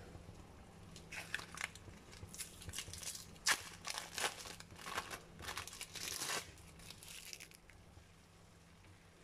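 Thin plastic packet crinkling and rustling in the hands as it is peeled open, a stretch of irregular crackles from about a second in until near the end.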